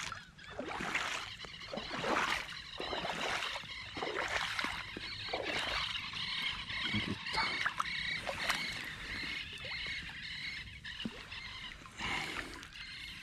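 Boots wading through shallow marsh water, each step splashing and sloshing, roughly once a second. Near the end, water drips and splashes as a shot duck is lifted out of the water.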